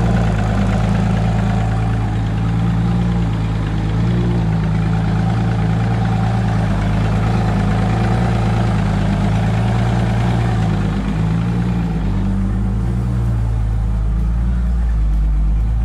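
Evinrude E-TEC 150 two-stroke outboard idling steadily with its cowling off, running out of the water on a hose supply. It has just started and runs normally on a newly replaced starter solenoid.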